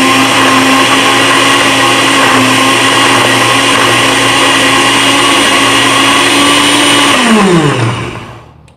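Electric countertop blender running steadily at full speed, blending an iced chocolate shake, then switched off about seven seconds in, its motor falling in pitch as it spins down.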